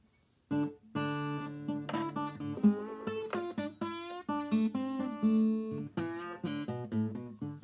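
Old handmade acoustic guitar played with a slide, picking a bluesy intro of plucked notes and chords with sliding pitches. It starts about half a second in.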